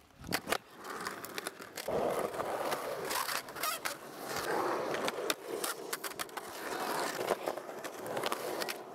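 Skateboard wheels rolling on concrete, the rolling noise building from about two seconds in, with repeated sharp clacks and knocks of the board throughout.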